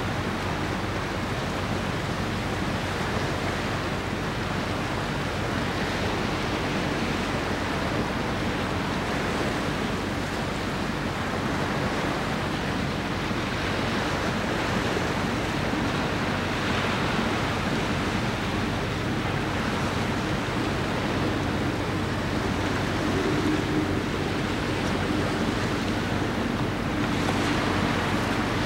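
Sea waves washing with wind on the microphone, an even, steady rushing noise. Under it sits a faint, steady low hum.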